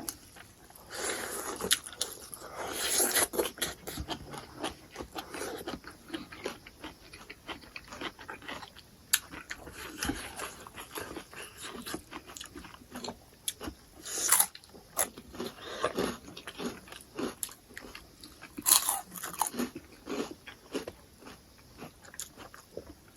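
Close-miked eating: a person biting and chewing food, with irregular crunches, louder in a few bursts.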